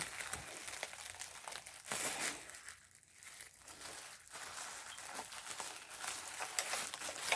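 Packaging crinkling and rustling as it is handled and pulled open by hand, with many small crackles.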